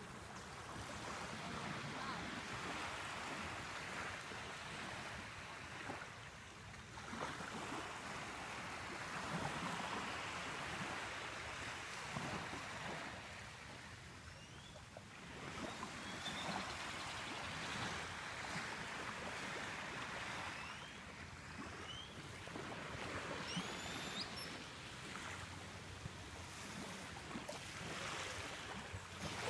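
Small waves washing onto a sandy beach, the surf swelling and falling every five seconds or so. A few faint high rising chirps come in the middle.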